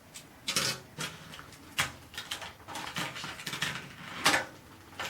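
Plastic toy track pieces and cars being handled, giving a few irregular clicks and short clatters.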